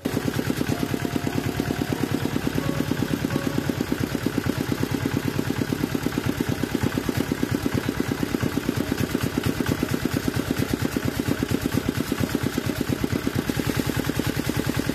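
R180 single-cylinder diesel engine running steadily, firing in rapid, even beats. It runs normally and smoothly after its stuck piston rings were dealt with.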